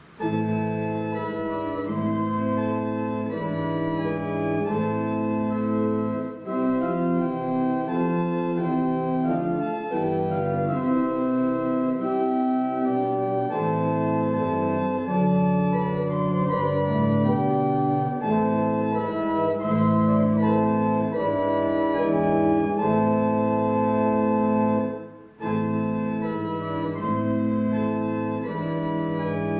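Church organ playing a hymn tune in held chords, phrase by phrase, with a brief break about six seconds in and a short gap about four seconds before the end between phrases.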